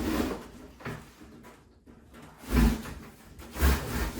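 Knocks and thumps from handling an AS30 auto-set gravity cat trap: a soft knock about a second in, then two louder thumps in the second half.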